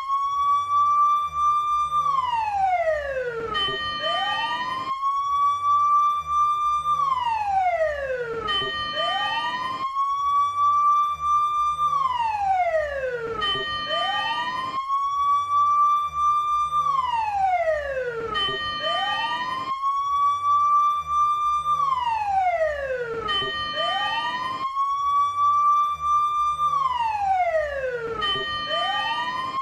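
Fire engine siren wailing in a steady cycle: each wail rises quickly to a high held pitch, holds for about a second and a half, then slides back down, repeating about every four seconds.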